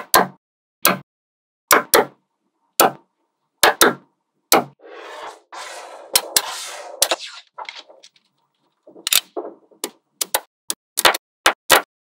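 Small neodymium magnetic balls clicking sharply as blocks snap together, single clicks about once a second. About five seconds in comes a couple of seconds of rattling noise as the balls are handled, then a quicker run of clicks near the end.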